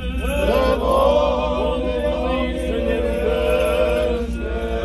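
Several male voices of Orthodox clergy chanting a funeral hymn together, the voices gliding between notes and then holding long notes.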